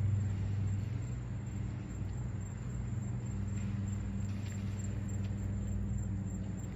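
A steady low mechanical hum, with a few faint short high chirps about halfway through.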